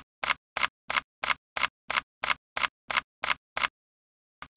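Edited intro sound effect: a run of sharp clicks, about three a second with dead silence between them, stopping just under four seconds in. A couple of quicker, fainter ticks follow near the end.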